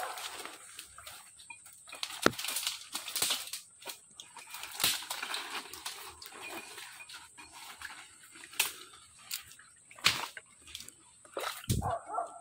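Footsteps squelching and sloshing through mangrove swamp mud and shallow water, with a few sharp snaps or knocks between the steps.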